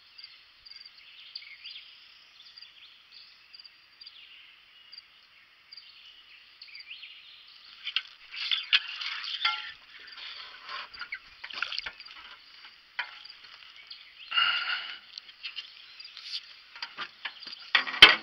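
Outdoor lake ambience of insects and birds. From about halfway, irregular splashes and clicks as a small bream on a jig pole is pulled from the water and handled, with a sharp click near the end.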